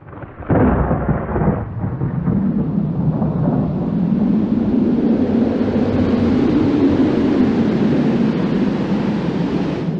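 Low rumbling sound effect like rolling thunder. It comes in suddenly about half a second in with a brief brighter crash, then settles into a steady deep rumble.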